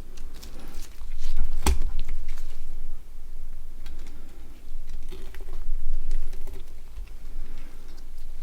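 Small plastic parts of a Nokia 6680 mobile phone tapping and clicking as they are handled and fitted together, with one sharp click about two seconds in and lighter ticks after it.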